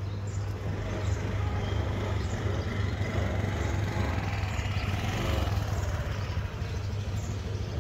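Steady low hum of a nearby motor vehicle engine, swelling a little around the middle.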